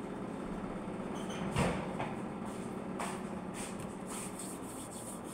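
Steady electric hum of a running kitchen appliance motor, with one knock about one and a half seconds in and a couple of lighter clicks after it.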